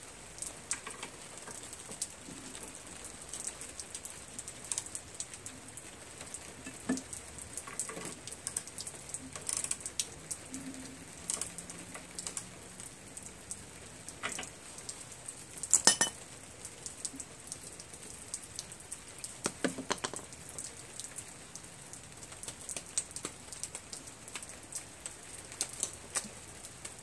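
Scattered light clicks and metallic clinks of tools and small parts being handled while a carburetor is refitted on a small engine, at irregular intervals with a sharper clack about sixteen seconds in, over a faint rain-like patter.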